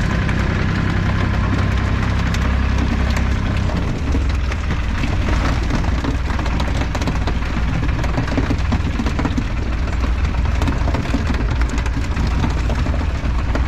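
Small fishing boat's engine running steadily under way, with water rushing and splashing along the hull.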